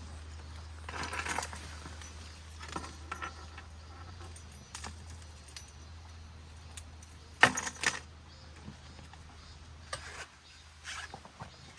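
Metal camping kitchenware and utensils clinking and rattling as they are handled and packed, in scattered bursts, with the loudest clatter about seven and a half seconds in.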